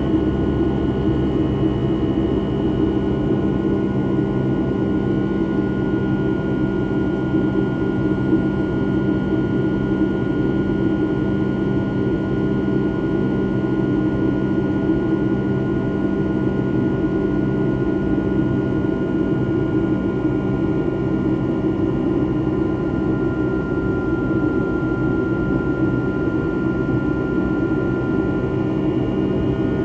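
Steady engine and airflow noise inside the cabin of a Boeing 757-200 with Rolls-Royce RB211-535E4B turbofans. A few faint whining tones sit above the noise and drift slightly in pitch.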